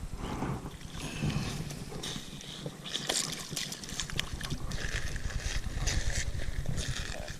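Water splashing and sloshing, with scattered sharp clicks and knocks over a low rumble, as a hooked fish is brought in at the creek's edge.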